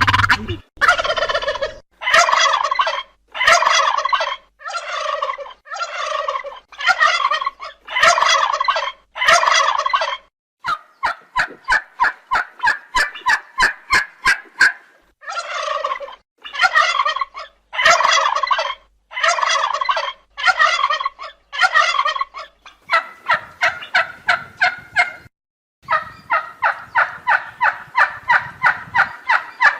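Turkey gobbling again and again: a long series of rapid, rattling gobbles about a second each, broken by stretches of faster continuous rattling.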